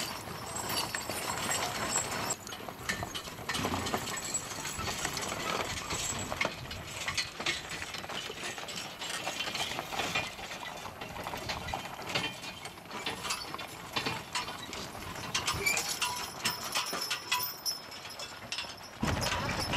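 Horse-drawn wagons rolling past on a gravel road: hooves clip-clopping while the wagons' wheels, running gear and harness rattle and clink in a steady run of sharp clicks.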